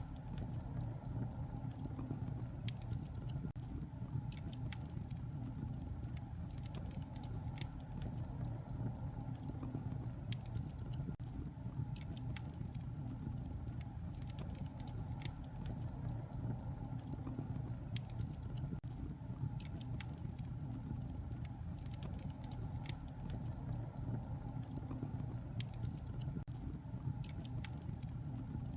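Wood fire burning in a fireplace: a steady low rumble of flames with irregular sharp crackles and small pops of burning logs.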